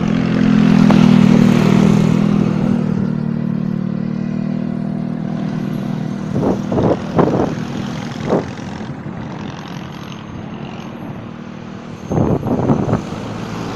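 Motor vehicle engine running steadily, loudest about a second in and slowly fading, with a few short, louder noises in the later seconds.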